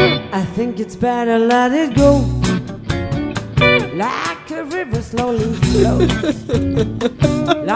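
Music: a guitar-backed song with a wavering lead melody that bends and glides in pitch over repeated low bass notes.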